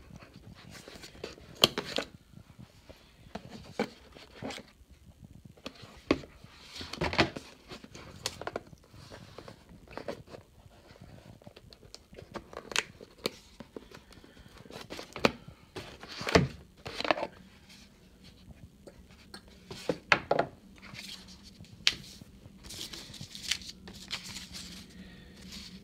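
Cardboard packaging and paper being handled: irregular knocks, scrapes and rustles as a box is opened and a folded paper leaflet is pulled out.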